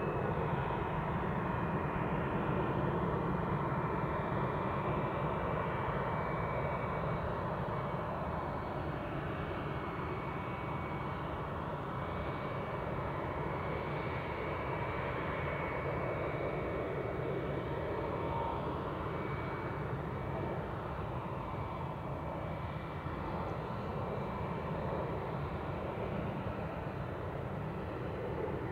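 Airbus A321-231's two IAE V2500 turbofans running at taxi power: a steady jet rumble with a thin high whine that sinks slightly in pitch.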